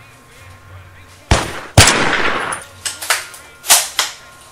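Gunfire: two loud shots about half a second apart a little over a second in, the second trailing off in a long echo, then four lighter, sharper shots in the last couple of seconds.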